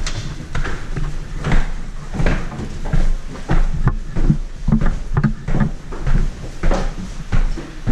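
Footsteps with knocks and clunks of gear while walking, a step or thud about every half second to second.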